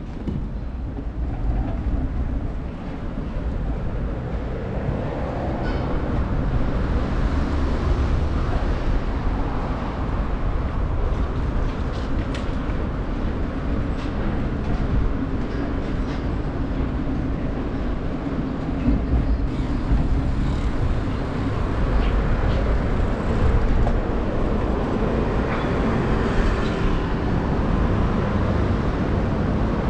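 Train running on the tracks close by: a steady rumbling noise that grows louder about six seconds in.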